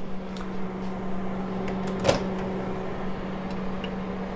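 Microwave-convection oven humming steadily, with a single clunk about two seconds in as its door is opened.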